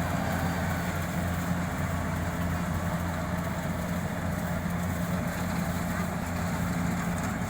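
Rice harvesting machine's engine running steadily with an even, low drone.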